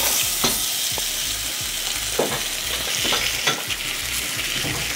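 Marinated whole pomfret sizzling in hot oil in a frying pan, a steady hiss with a few sharp crackles.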